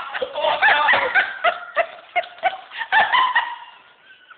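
Yorkshire terrier whining and yipping in a quick run of short, high, wavering calls while it is being bathed; the calls fade out near the end.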